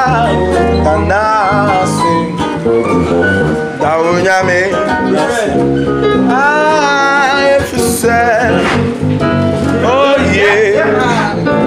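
Nord Electro 3 stage keyboard and electric bass guitar playing a song together live, with a voice singing wavering melodic runs over them.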